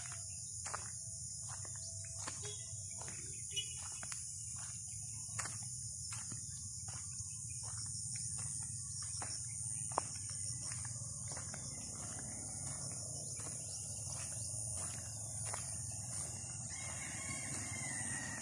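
Steady high-pitched drone of insects in the field, with scattered light clicks. Near the end a rooster crows faintly in the distance.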